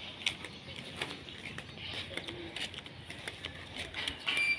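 Footsteps of a person walking on a paved street: faint light clicks roughly once a second over low background noise, with a brief high tone near the end.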